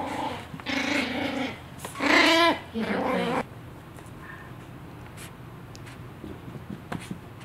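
Maltese puppy growling and whining playfully in short bursts, four of them over the first three seconds or so, one rising and falling in pitch about two seconds in; then quieter, with a few faint clicks as it gnaws a rawhide bone.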